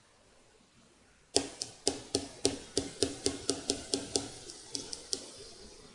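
A quick series of sharp taps, about four a second, starting over a second in and thinning out near the end.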